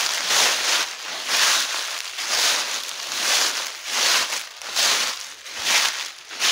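Footsteps shuffling through dry fallen leaves, a crunching rustle with each step at about two steps a second.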